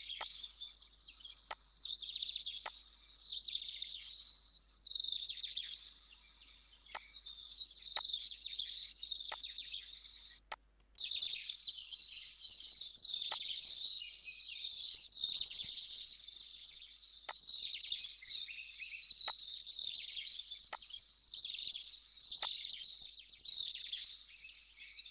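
A dense chorus of small birds chirping without pause, with a sharp computer-mouse click every second or two. The sound drops out briefly about ten seconds in.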